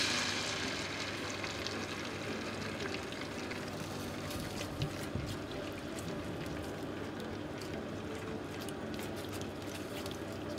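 Beaten egg sizzling in a hot frying pan as it is cooked into scrambled egg, brighter at first and settling within a couple of seconds to a steady sizzle with light crackles.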